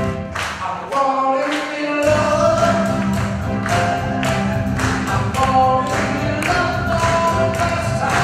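Live band music with a steady drum beat and a male singer. The bass drops out about a second in and comes back in full about two seconds in.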